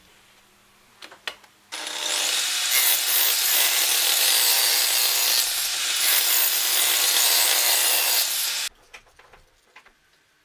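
Portable table saw running and cutting through a plywood panel: a loud, steady noise that starts abruptly a little under two seconds in and cuts off abruptly near the end, with a couple of light clicks before it.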